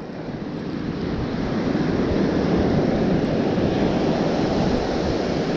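Surf breaking and washing up a sandy beach, a steady rush of noise that builds slightly over the first couple of seconds, with some wind on the microphone.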